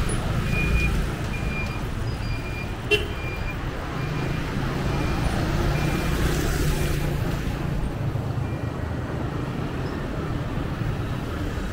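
City street traffic: engines running with a low steady hum and a vehicle passing about six seconds in. A short high-pitched beep repeats evenly through the first few seconds, and there is a single sharp click about three seconds in.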